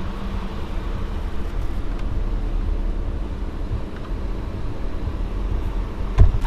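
Car driving, heard from inside the cabin: a steady low rumble of engine and tyres, with one sharp low thump about six seconds in.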